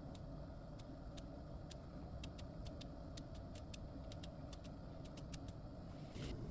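Faint steady low hum with a scatter of light, crisp ticks at irregular intervals.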